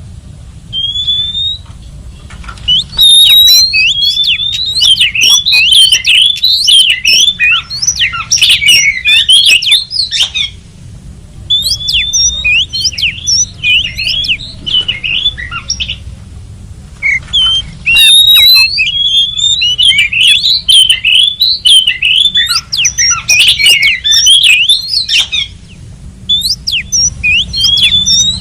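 Oriental magpie-robin (kacer) singing: loud, fast runs of varied whistled notes in bouts several seconds long, broken by pauses of a second or two. The song is a lure recording (pikat) meant to draw in wild magpie-robins.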